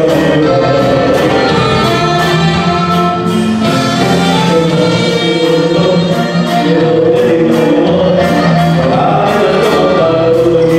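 Live band playing loud dance music with singing over a steady, quick beat.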